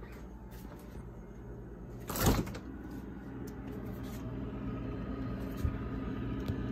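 Refrigerator door pulled open about two seconds in, a short loud sound as the door seal lets go, followed by the refrigerator's steady low hum, with a small click near the end.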